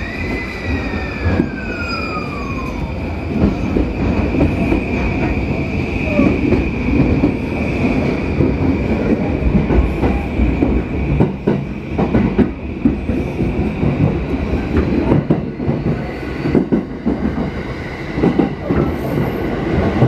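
JR Yamanote Line electric train heard from inside the car as it pulls out and picks up speed. A steady rumble of wheels on rails runs under a thin high squeal. A falling tone sounds over the first three seconds, and irregular clacks over track joints come through the second half.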